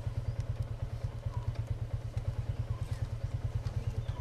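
Suzuki GSX-R750's inline-four engine idling steadily close by, an even low pulsing note, with a few faint light clicks above it.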